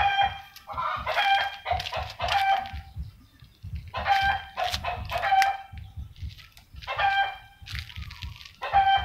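Repeated short animal cries in quick runs, each run lasting about a second with brief gaps between.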